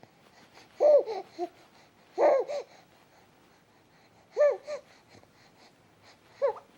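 A baby hiccupping: four short squeaky voiced hics about two seconds apart, each followed by a smaller catch of breath.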